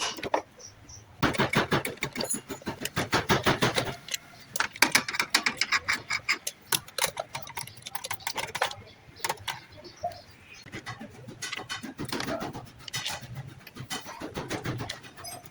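Hand tools working metal parts on a car engine: quick runs of sharp clicks and clinks, thick for the first half and sparser toward the end.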